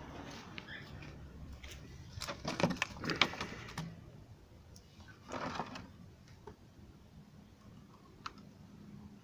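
Irregular clicks and knocks of small hard objects being handled, clustered around two to four seconds in, then a short scraping burst and a few scattered clicks.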